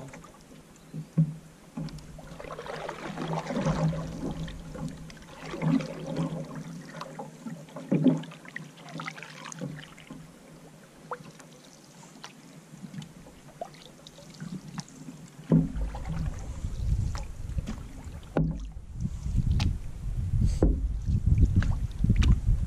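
Canoe paddling: the paddle splashes through the water every couple of seconds, with light knocks between strokes. A low rumble comes in about two-thirds of the way through.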